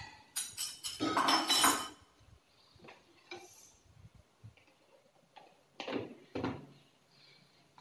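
A metal spoon clinking and scraping against a bowl as tomato pieces are tipped into a plastic pull-cord vegetable chopper, a dense clatter in the first two seconds. Then a few scattered plastic clicks and two knocks as the chopper's lid is fitted and pressed on.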